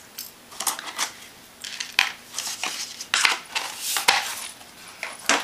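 Small items being handled: an irregular run of light clinks, clicks and rustles as jewellery and gift packaging are moved about and set down.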